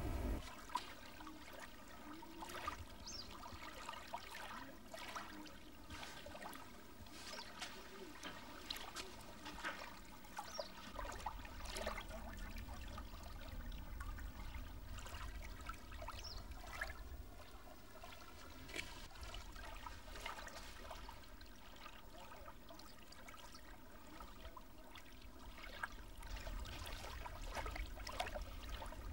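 Faint water sounds: small waves lapping and trickling with irregular little splashes, over a low rumble.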